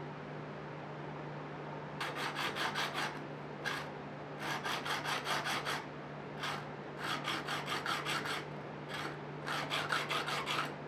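Straight razor of forged 1084 high-carbon steel scraping through beard stubble in quick, short strokes: several runs of rapid scrapes with pauses between them. A steady low hum runs underneath.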